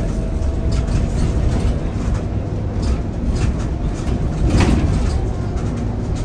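Scania K230UB city bus in motion heard from inside the cabin: steady engine and road rumble with scattered body rattles, and one louder clatter about four and a half seconds in.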